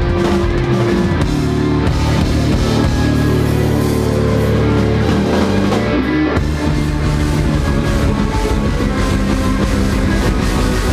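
A rock band playing loud live music, with guitars and a drum kit, steady and dense throughout.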